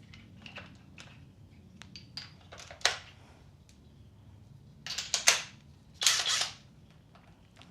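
Small metallic clicks and a knock as a 19mm socket is handled and fitted, then two short bursts from an impact wrench about five and six seconds in.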